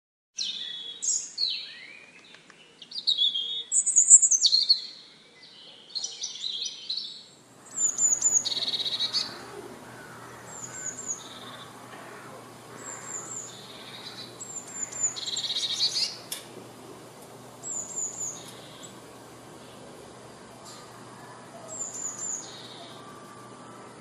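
Blue tit calling and singing: a run of varied high chirps first, then, after the background changes, a repeated phrase of two or three thin high notes followed by a lower trill, every few seconds.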